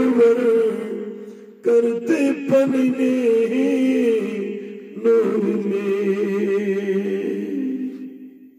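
Unaccompanied male voice chanting a naat in long held, wavering phrases over a steady low vocal hum, with no instruments. Three phrases; the last fades away near the end.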